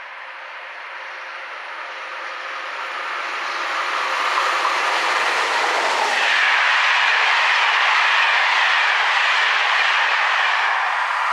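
Electric-hauled passenger train of Corail coaches passing at speed. It grows steadily louder as it approaches, then the passing coaches make a loud, steady rush of wheel and rail noise.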